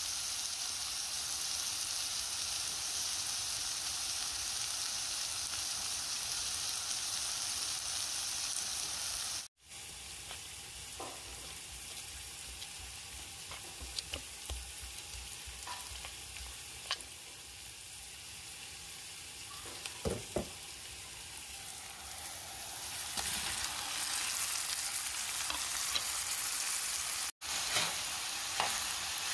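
Chopped onions sizzling in oil in a frying pan, a steady hiss. After an abrupt cut the hiss drops and a spoon clinks a few times against a plate as cooked fish is flaked; near the end the sizzling grows louder again, with a spoon stirring and knocking in the pan.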